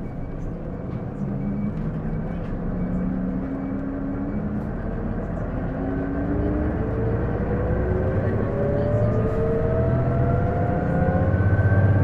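Isuzu PJ-LV234L1 city bus pulling away and accelerating, a whine from the drivetrain rising steadily in pitch with road speed over an engine note that grows louder. This whine on every acceleration is the bus's abnormal noise, which the owner likens to an automatic transmission and suspects comes from the transmission.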